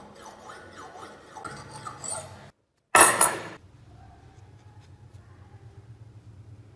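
Steel scissor blade drawn back and forth across a wet whetstone, a rasping stroke about twice a second for the first two and a half seconds. It cuts off, and about three seconds in there is a loud, brief noise, followed by faint handling over a low hum.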